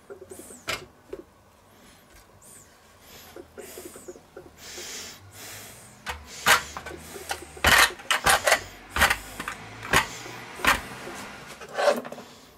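Hands breading a bacon-wrapped cutlet in stainless steel trays. At first there is soft rustling and patting in the flour, then from about halfway through a string of sharp slaps and clicks as the meat is moved into the egg wash and handled against the tray.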